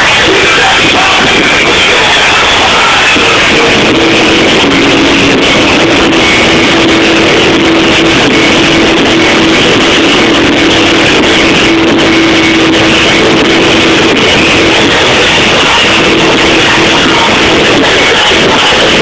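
A rock band playing live, with guitars carrying held notes, recorded loud and dense.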